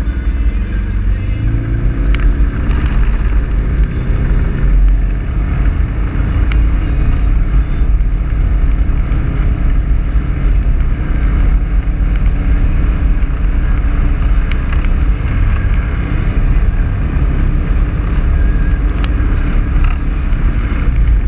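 Engine and drivetrain of the vehicle carrying the camera, heard from on board as it drives across a gravel lot: a steady low rumble with road and wind noise. The engine note rises in the first few seconds as it picks up speed, with a few faint ticks from stones along the way.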